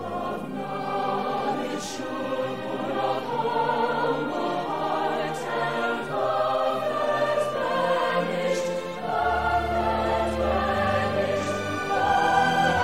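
Choir singing with orchestral accompaniment, in long held notes that change about once a second; deeper bass notes come in about nine seconds in.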